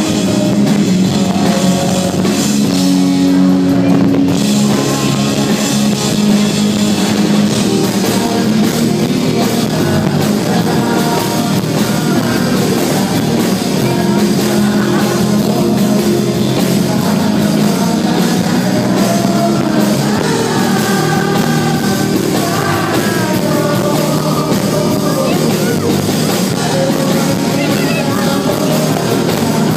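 Rock band playing live: drum kit, guitars and singing, loud and continuous, as heard from the audience at a concert.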